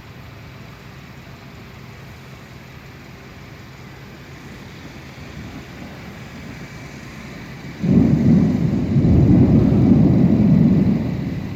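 Thunder: about eight seconds in, a sudden loud clap that rolls on as a low rumble for about three seconds and fades near the end, over a steady low background noise.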